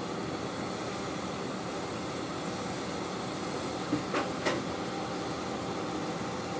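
Steady hum of a diesel railcar standing at a station with its engine idling. A few brief knocks or clicks come about four seconds in.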